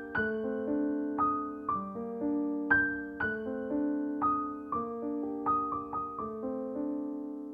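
Background piano music: an unhurried melody of struck notes, each ringing and fading before the next.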